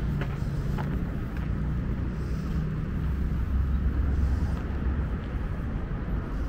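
Steady low rumble of a motor vehicle's engine in passing street traffic.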